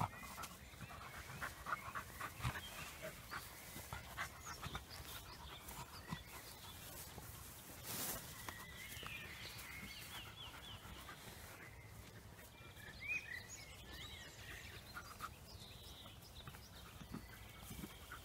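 Cavalier King Charles Spaniel puppies playing, faint, with a few short high squeaks around the middle.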